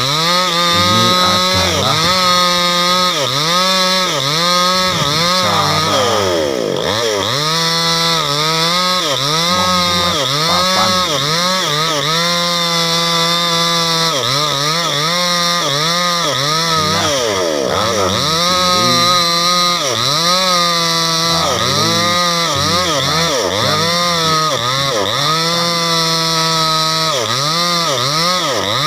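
Chainsaw running hard and cutting wood, its engine pitch repeatedly dipping and climbing back every second or two as the chain bites and frees.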